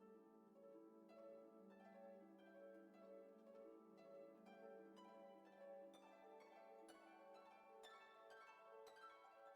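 Faint instrumental background music with a steady run of notes.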